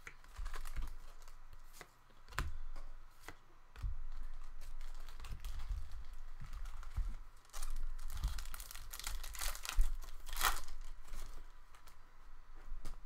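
Trading card packs being torn open by hand, wrappers crinkling and cards shuffling in irregular bursts, the loudest near the end.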